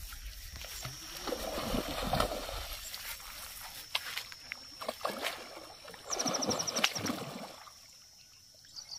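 Hooked fish splashing and thrashing at the surface of shallow water in several bursts while it is played on a bent rod, with a quick run of clicks about six seconds in.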